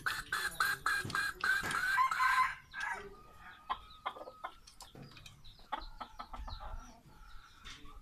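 Rooster clucking in a fast, even run of about four calls a second for the first two and a half seconds, then only soft, scattered clucks.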